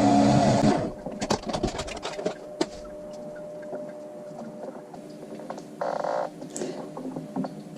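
Electric salad spinner's motor running, then stopping about a second in, followed by scattered light clicks and knocks.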